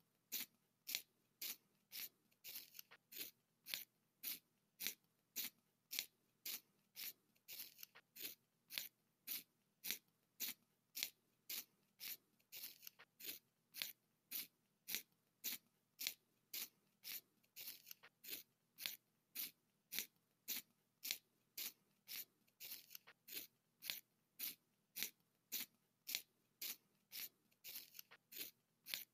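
Hand-held manual pencil sharpener shaving a coloured pencil: the blade cutting the wood as the pencil is turned, in a steady series of short, dry scraping strokes, somewhat under two a second.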